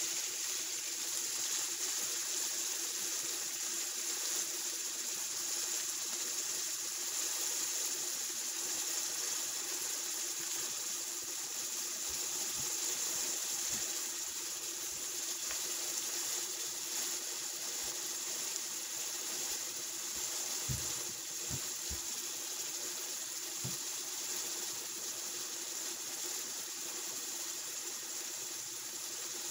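Onions sizzling as they sauté in hot oil in a pan, a steady hiss throughout. A few soft knocks come in the middle stretch.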